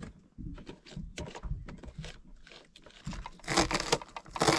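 A fork beating eggs in a plastic tub, then a knife chopping green pepper on a plastic cutting board. The sound is quick, irregular knocks, loudest and densest near the end.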